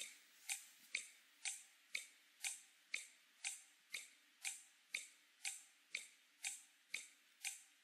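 Game-show countdown clock ticking steadily, about two sharp ticks a second, as the contestant's ten-second time to solve the final puzzle runs out.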